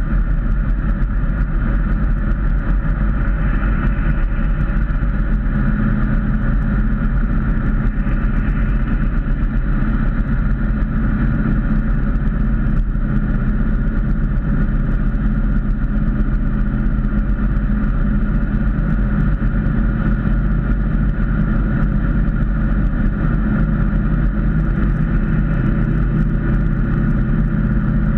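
Ford Mustang cruising at highway speed, heard from inside the cabin: a steady engine drone under constant road and tyre noise.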